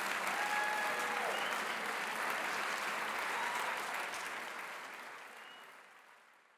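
Audience applauding, with a long call from someone in the crowd in the first second or so; the applause fades away over the last two seconds.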